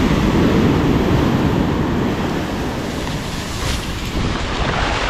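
Surf breaking and washing up the sand, with wind buffeting the microphone.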